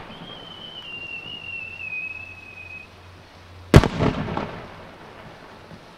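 A single aerial firework shell: a whistle rides up with it for nearly three seconds, its pitch sinking slightly, then the shell bursts with one loud bang a little before four seconds in, followed by a short trail of echoes.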